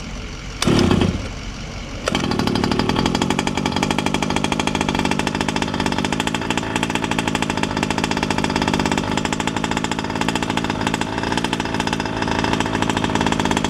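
Losi 5ive-T's small two-stroke gas engine starting cold: about two seconds in it catches and keeps running steadily with a fast, even buzz.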